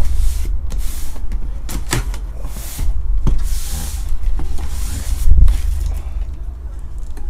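A knife slicing along the packing tape on a cardboard case in several long, scratchy strokes, with a few short knocks of hands and box against the table.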